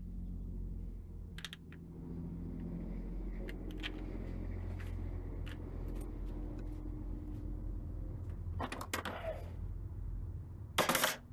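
Hand tools clicking and knocking against metal and plastic parts at a scattered, uneven pace over a steady low hum. Two louder clattering knocks come near the end.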